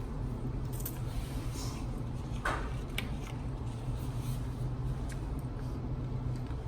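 Microwave oven running with a steady low hum as it heats food, with two light clicks about halfway through.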